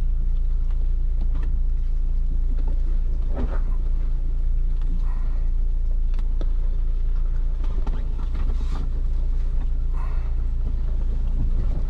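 Ford Bronco's engine and drivetrain running with a steady low rumble as it crawls over rough off-road terrain, heard from inside the cabin, with a few faint scattered knocks and creaks.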